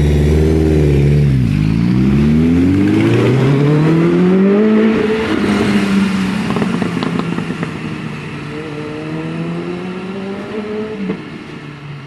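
Motorcycle engines accelerating hard. The pitch dips about a second and a half in, climbs steadily for several seconds and then holds, with some crackling around the middle. The sound grows fainter as the bikes ride away, and the pitch climbs again near the end.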